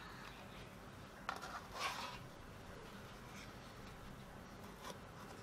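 Faint scrape and clicks of a spatula working against a nonstick baking pan as baked cookies are lifted off: a sharp tap about a second in, a short scrape right after it, and a light click near the end.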